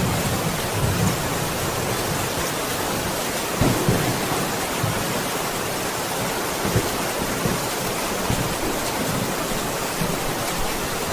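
Steady heavy rain in a thunderstorm, with low rolls of thunder rumbling near the start and again about four seconds in.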